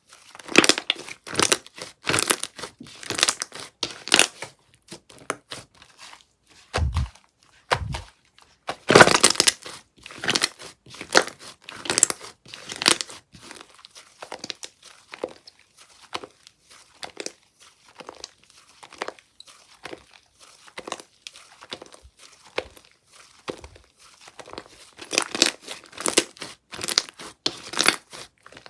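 Hands playing with a chocolate-mousse slime, stretching, squishing and poking it, in irregular clusters of quick sticky clicks and pops. There are two dull thumps about seven seconds in.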